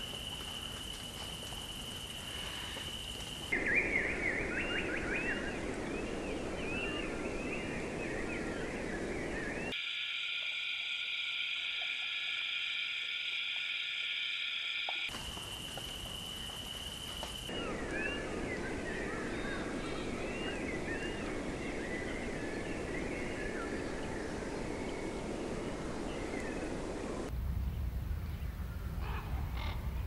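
Nature ambience of chirping animal calls: stretches of many quick, repeated chirps over a steady hiss, alternating with a steady high-pitched trill. The sound changes abruptly several times, as if spliced, and a low rumble comes in near the end.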